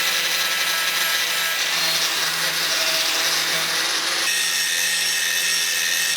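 A power tool abrading a rusty axe head: a steady grinding and sanding noise that changes abruptly about four seconds in.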